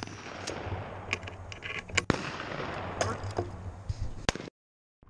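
A shotgun fires once right at the start. It is followed by about four seconds of rustling handling noise with sharp clicks and knocks from the gun-mounted camera, which then cuts out suddenly into silence.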